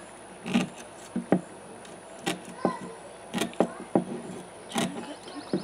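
Tin snips cutting a small piece of wire window screen: a series of short, crisp snips at an uneven pace, about eight in all.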